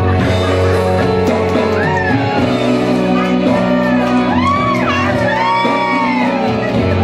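A woman sings into a microphone over amplified backing music heard through a PA loudspeaker, her voice coming in about two seconds in with long held notes that rise and fall.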